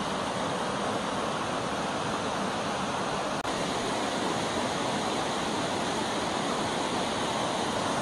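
Mountain stream rushing over rocks in small cascades: a steady, even rush of water, broken once by a momentary gap about three and a half seconds in.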